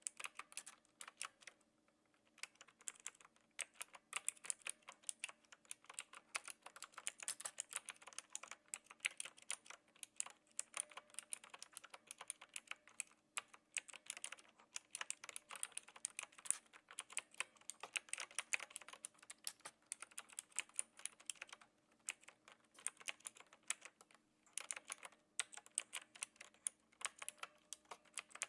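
Typing on a Knewkey Rymek typewriter-style mechanical keyboard with clicky blue switches: a rapid, steady run of key clicks with a few brief pauses, the first about two seconds in.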